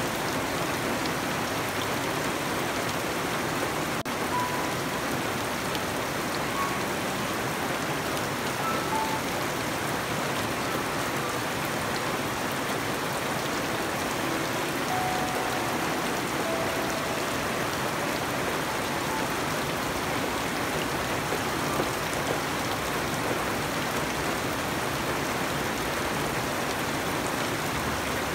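Steady rain falling on garden foliage and wet ground: an even hiss with no breaks. A few faint short tones come through here and there.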